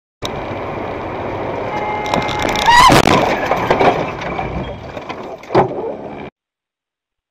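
Dashcam recording of a car crash: steady road and engine noise from inside the car, then about three seconds in a loud collision with a short rising squeal and a jumble of knocks, and one more sharp knock near the end.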